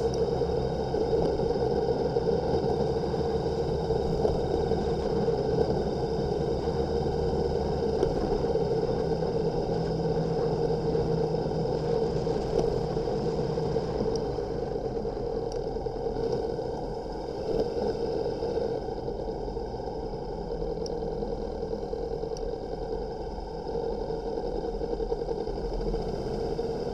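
Motorcycle running steadily on the move, its engine under a constant haze of road noise, easing a little for a few seconds about two-thirds of the way through.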